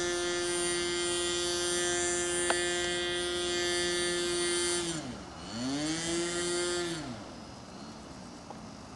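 Radio-controlled model tow plane's motor held at full throttle, a steady high buzz; about five seconds in it drops briefly, revs back up, and then throttles right down about seven seconds in.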